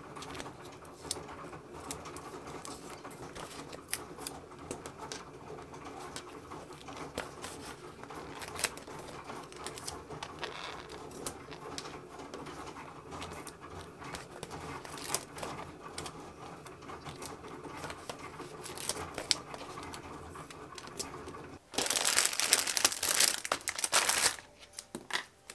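Small clicks and taps of paper stickers being peeled and pressed, over a steady low hum. About 22 s in, a clear plastic sleeve crinkles loudly for about two seconds, and again briefly near the end.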